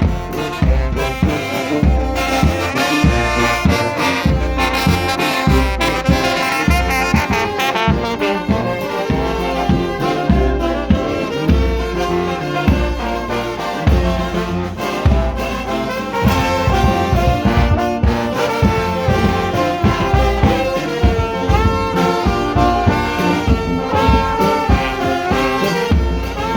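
Brass band playing: trumpets and trombones carry sustained melody notes over a steady, regular beat of bass drum and percussion.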